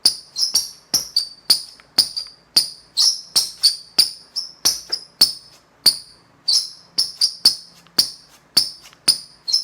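A series of short, sharp, high-pitched chirps or squeaks, each starting with a click and quickly fading, about two or three a second, slightly irregular.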